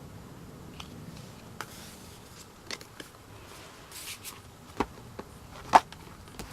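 Handling of a K-pop album package: scattered light clicks and taps with brief rustles of paper or plastic, the sharpest click a little before the end.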